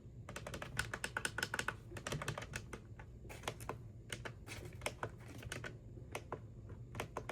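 Quick, irregular clicking of plastic buttons being pressed on a Maxx Digital weather radio while stepping through its menu.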